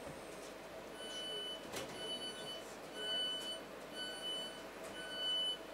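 Electric multiple-unit train's door warning beeps: five steady, high beeps, about one a second, the warning given as the passenger doors close at a station stop.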